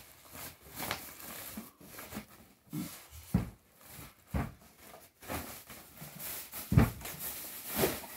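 Plastic bag packaging rustling and crinkling in irregular bursts as a heavy bagged speaker is gripped and lifted out of its polystyrene packing, with a few dull bumps; the loudest bump comes about two thirds of the way through.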